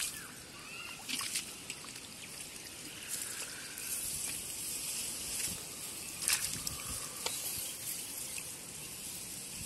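Shallow muddy water in a flooded rice paddy trickling and sloshing lightly, with a few short, sharp splashes, the clearest about a second in and about six seconds in.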